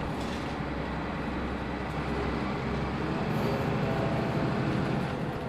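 Mitsubishi Fuso Aero Star (QKG-MP38FK) city bus heard from inside the cabin: its diesel engine and drivetrain running steadily under way. About halfway through, the deepest drone fades and a slightly higher engine note comes up.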